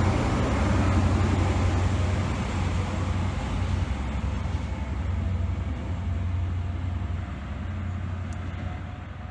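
CrossCountry HST with Class 43 diesel power cars going away: a deep engine drone with wheel and rail noise, fading steadily as the train recedes.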